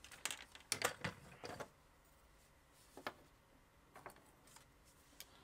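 Hard plastic toy vehicle and a steel ruler being handled and set down on a cutting mat: a quick cluster of light clicks and knocks in the first second and a half, then a few faint ticks.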